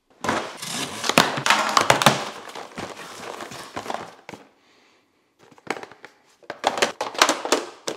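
Cardboard box being handled and opened, with thin clear plastic storage containers clacking and rattling as they are pulled out. Irregular sharp clicks and rustling, a short lull about halfway, then more clattering.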